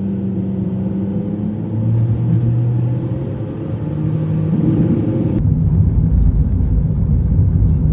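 Car driving on a road: a steady low engine hum that shifts in pitch, over tyre and road rumble. About five seconds in the sound changes abruptly to a heavier, deeper rumble.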